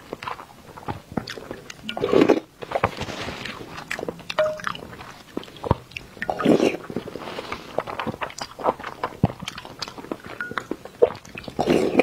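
Close-miked eating sounds: soft whole boiled eggs in spicy sauce bitten off a wooden spoon and chewed, with many wet mouth clicks and smacks. Louder bites come about two seconds in, around six seconds and again near the end.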